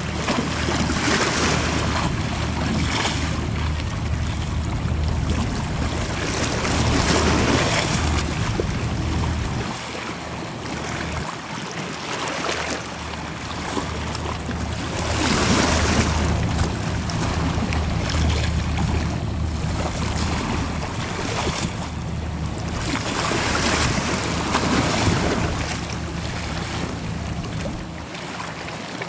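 High-speed passenger ferry's engines running with a steady low drone as it passes close by, under the rushing of its bow wave and spray, which swells every few seconds. The drone fades briefly about a third of the way in and then returns.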